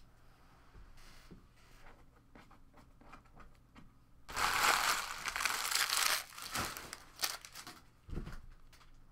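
Foil trading-card pack wrappers being crumpled and gathered up: scattered crinkles, then a loud stretch of dense crackling for about two seconds near the middle, trailing off into a few more crinkles. A soft thump follows near the end.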